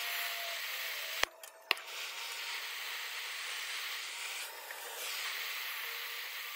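Oxy-fuel torch flame hissing steadily as it heats a hardened steel tool to temper it, with two sharp clicks about a second and a half in.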